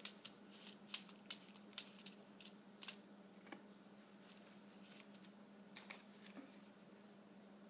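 Faint clicks and light rustling of a felt sheet being handled and pressed down on a tabletop: a quick run of clicks in the first three seconds, a few more a little before the end, over a faint steady hum.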